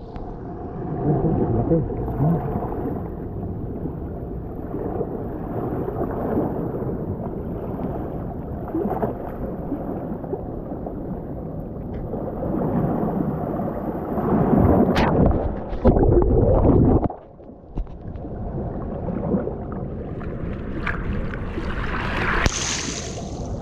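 Seawater surging and sloshing over a mussel-covered shoreline rock, with gurgling as the wash drains back; the level rises and falls with each wave and dips briefly about three-quarters of the way through.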